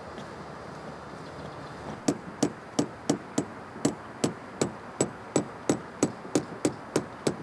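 A hammer driving nails into hinoki bark roofing in a quick, even rhythm of about three sharp strikes a second. The hammering starts about two seconds in.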